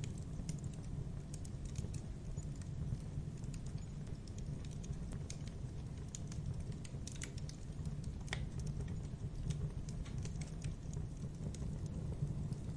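Burning logs crackling in a fireplace: irregular sharp pops and snaps over a steady low rumble, with one louder pop about eight seconds in.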